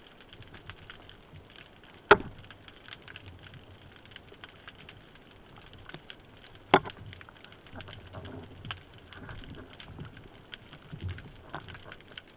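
Underwater sound through a speargun-mounted camera's housing: a faint steady crackling, with two sharp knocks about two and seven seconds in and a few softer knocks near the end.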